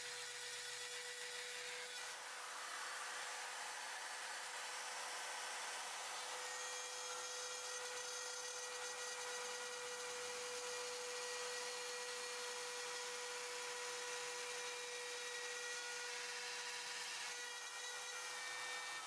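Corded Dremel rotary tool running at a steady high-pitched whine as its cutting wheel cuts through a plastic truck bumper, with a rasping cutting noise joining from about two seconds in.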